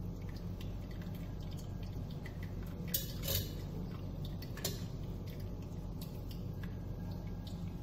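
Melted jaggery being strained through a metal mesh strainer into an aluminium pressure cooker, with a few metal clinks of the strainer against the cooker about three seconds in and again near five seconds, over a steady low hum.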